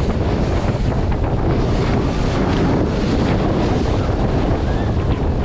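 Heavy wind buffeting the microphone over the rush and splash of seawater as an inflatable ride skims fast across the waves. It is loud and steady throughout, with many small splashes in it.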